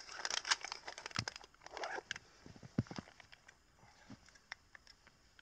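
Rustling and clicking of a winter jacket as things are stowed at its front, then a few scattered soft knocks and one low thump as he crouches in snow, fading to quiet handling.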